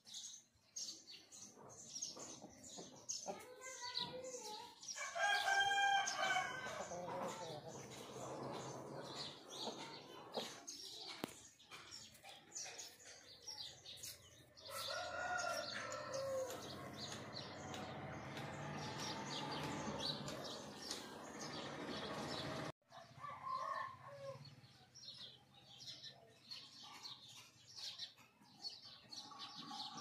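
Rooster crowing twice, loudest about five seconds in and again about fifteen seconds in, with small birds chirping in between.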